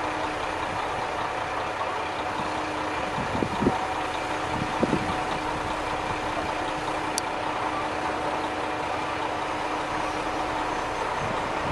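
Diesel railcar approaching from a distance, its engine a steady hum with a constant low tone. A couple of brief thumps come about three and a half and five seconds in.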